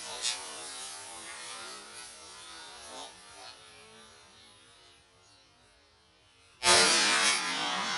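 A single shotgun shot fired at a flying turtle dove about two-thirds of the way in, sudden and loud, with its noise trailing off over about a second. Before it, soft rustling and a few light clicks as the gun is raised and swung through dry grass.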